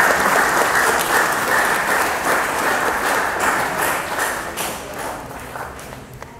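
Audience applauding in a hall, the dense clapping fading out toward the end.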